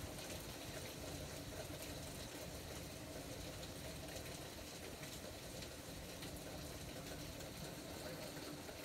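Heavy rain falling steadily: an even, quiet hiss with a faint scattered patter of drops.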